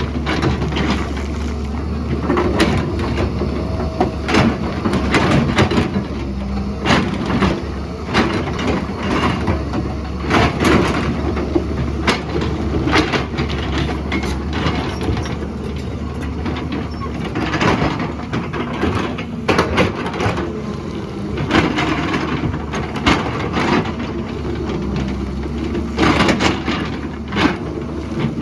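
Excavator's diesel engine running steadily, with frequent knocks, clanks and scrapes of the bucket working rock and soil.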